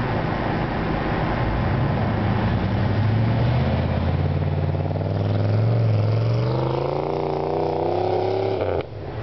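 GMC 4x4 pickup's engine revving under load as it drives at and climbs a steep snow hill, the pitch rising steadily over the last few seconds. The sound cuts out abruptly for a moment near the end.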